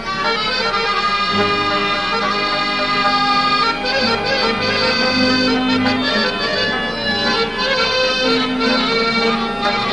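Instrumental opening of a traditional Pashto ghazal: a harmonium plays a slow melody of long held notes.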